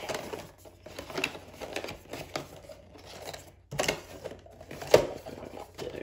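Cardboard packaging being handled: a paperboard insert and box flaps rustling and scraping as they are pushed back into a small retail box and the lid is closed, with irregular taps and one sharp tap about five seconds in.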